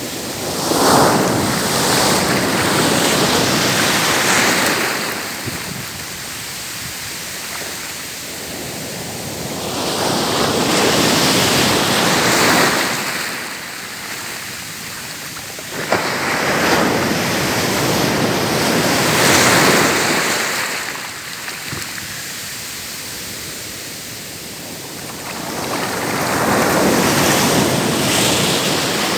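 Sea waves washing in and breaking on a shore: four surges, each a few seconds long and about eight seconds apart, with a steady hiss of surf between them.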